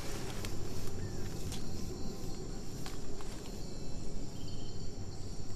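Rainforest insects chirring steadily in high, even tones, with a few scattered rustles and crackles of leaves and stems being handled close by.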